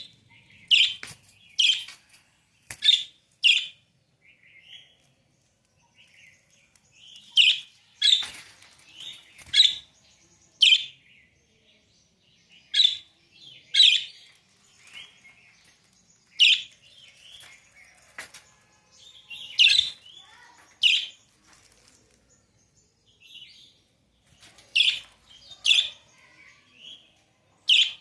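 Small pet parrots calling: short, sharp chirps that come in quick runs of two to five, with brief pauses between the runs.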